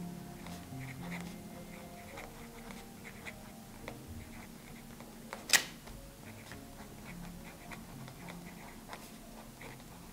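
Fine nib of a Benu Briolette fountain pen writing on Rhodia notepad paper: faint, irregular scratchy strokes. A single sharp click about five and a half seconds in.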